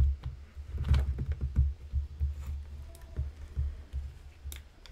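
Handling noise as a shotgun microphone's shoe-mount adapter is fitted onto a camera's hot shoe: irregular low thumps and knocks, with a few sharp clicks near the end.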